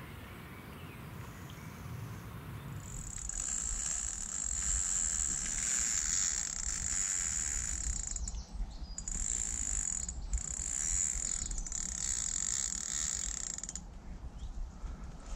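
Carp fishing reel's clutch buzzing as a hooked carp takes line. The buzz starts about three seconds in, breaks off briefly a few times, and stops shortly before the end, over a low rumble.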